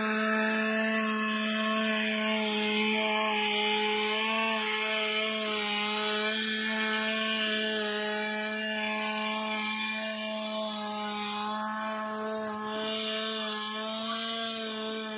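A power tool running steadily at one pitch, with a rasping hiss over its whine.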